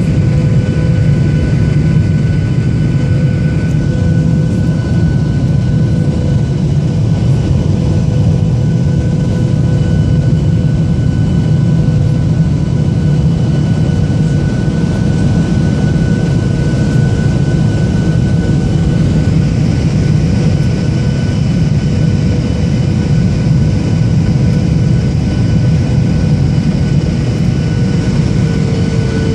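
Steady cabin noise inside a Boeing 737-800 on approach: a loud rumble of jet engines and rushing air, with a few faint steady whining tones from the engines.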